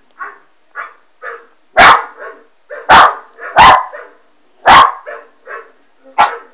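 West Highland white terrier puppy barking: five loud, sharp barks, spaced about a second apart, with fainter barks in between.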